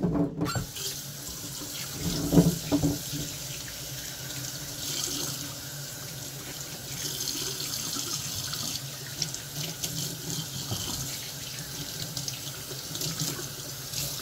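Kitchen faucet running into a stainless steel sink while asparagus spears are rinsed under the stream. The water comes on about half a second in, with a few knocks soon after.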